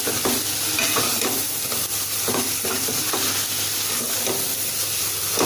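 Onion-tomato masala with chilli powder sizzling in hot oil in a pan, stirred with a spoon that scrapes the pan in short repeated strokes. The masala is being sautéed until the oil separates.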